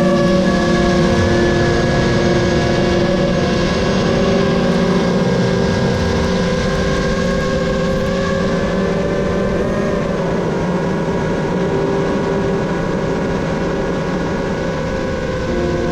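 Motors and propellers of a 7-inch FPV quadcopter, with a steady multi-tone whine that shifts in pitch slightly now and then, over heavy wind rush.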